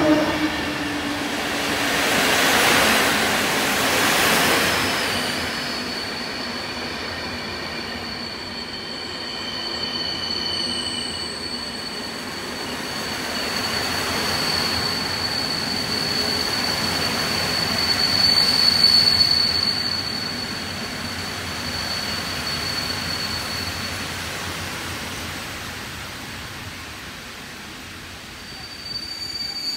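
PKP Intercity passenger coaches rolling past along a platform, wheels rumbling on the rails. A steady high-pitched squeal sets in about five seconds in, is loudest a little past the middle, fades, and comes back near the end.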